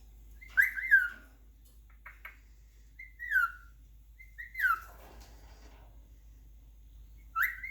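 Pet bird giving a series of short falling whistles, about five in all, spaced a second or more apart.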